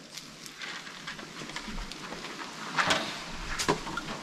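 Gas grill hissing and crackling steadily, with two sharp metal clicks near the end.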